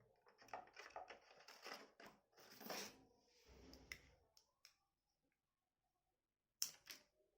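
Faint handling noises: a run of small clicks and rustles, a pause of near silence, then one sharp click near the end.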